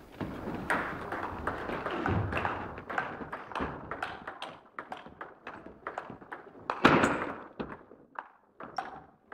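Table tennis rally: a celluloid ball clicking off rubber bats and the table in quick alternation, with the hits echoing in a sports hall. One louder burst stands out about seven seconds in.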